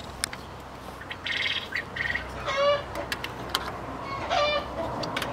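Poultry calling in the coops: three short calls about a second and a half apart, with light clicks in between.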